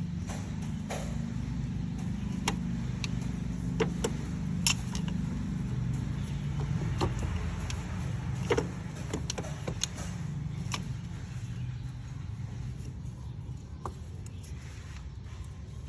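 A vehicle engine running with a steady low hum, with scattered sharp clicks and taps over it.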